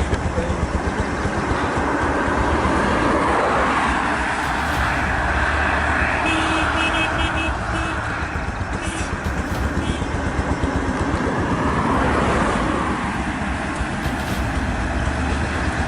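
Steady road traffic noise, with a quick series of short beeps about six seconds in.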